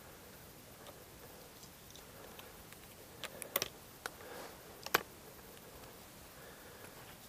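A few faint, sharp clicks and knocks, the loudest about five seconds in, over a quiet background.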